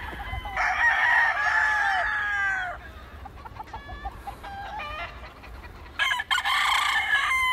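Roosters crowing: two long crows, each falling in pitch at the end, the second starting about six seconds in, with short clucks between them.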